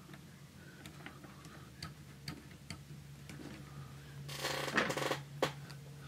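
Faint clicks and light taps of small metal parts as a screw with a little ground lug is worked into an aluminium instrument frame by hand. About four seconds in comes a second of louder scraping handling noise, then one more sharp click.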